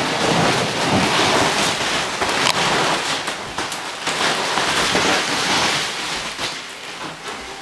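Large inflatable vinyl ball rolling and shifting with a person inside: a dense crackling rustle of the vinyl skin rubbing and flexing, with many small knocks. It eases off toward the end.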